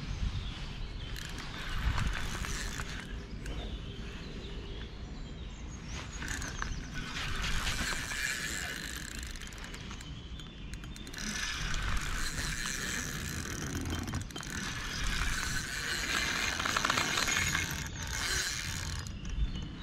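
Spinning fishing reel being cranked in spells with a couple of short pauses, its gears whirring and clicking as line is wound in.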